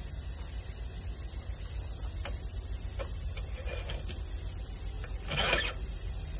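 A few light clicks and one short, louder scraping rattle about five seconds in as a hydraulic bushing-press cylinder is handled and fitted against a truck's leaf-spring eye, over a steady low background rumble.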